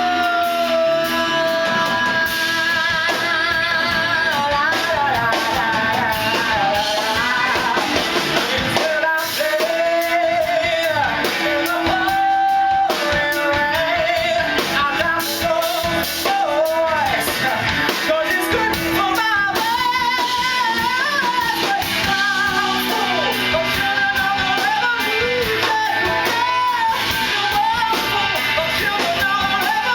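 Live rock song: a singer holds long notes with wide vibrato over a band with guitar.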